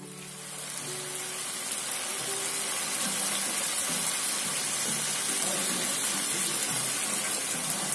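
Chicken pieces frying in a pan, a steady sizzle that builds over the first couple of seconds and then holds. Faint background music underneath.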